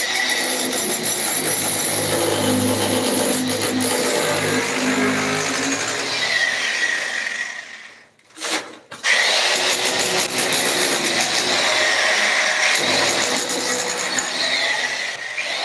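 Construction machinery running steadily, with a brief cut-out about eight seconds in.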